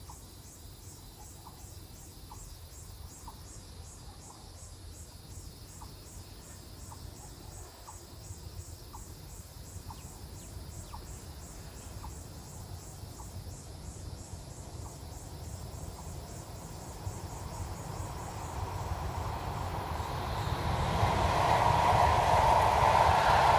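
Insects chirping in a fast, even pulse, with faint short chirps about once a second. In the last few seconds a rushing noise swells and becomes loud as a Taiwan High Speed Rail 700T train comes out of a tunnel at speed.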